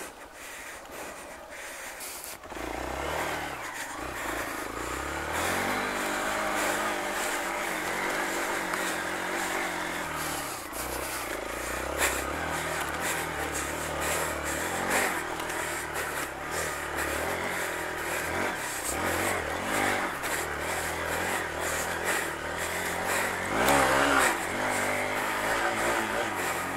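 Hero Xpulse 200 4V's single-cylinder engine running under load on a rough off-road trail, the revs rising and falling with the throttle. It picks up about two and a half seconds in, surges near the end, and a few knocks come through along the way.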